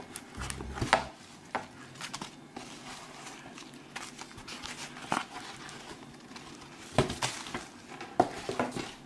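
Rummaging through a cardboard care-package box: packing rustles and crinkles, with several sharp knocks as items bump each other and the table.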